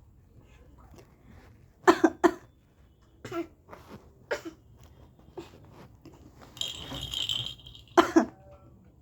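Short playful coughs traded between an adult and a baby, the baby coughing back in imitation. The loudest is a double cough about two seconds in, another loud one comes near the end, and softer coughs fall in between. A brief hiss comes a little before the last cough.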